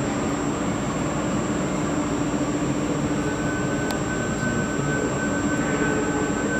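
Overhead travelling crane running: a steady mechanical hum and rumble, with a higher steady whine joining about three seconds in and a single click about four seconds in.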